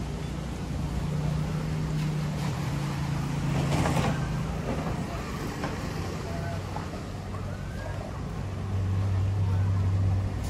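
Low, steady engine hum of a motor vehicle, with a deeper, louder hum taking over about nine seconds in. Faint voices are mixed in.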